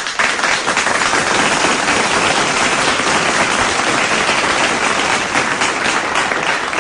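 Applause: many hands clapping in a dense, steady patter that thins out near the end.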